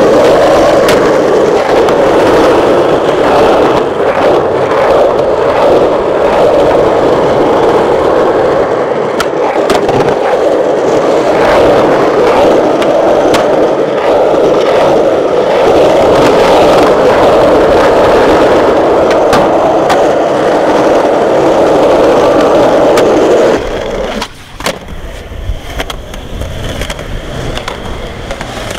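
Skateboard wheels rolling over rough asphalt, a loud steady roar with faint scattered clicks. About 24 seconds in it drops to a quieter, more uneven roll with a few knocks.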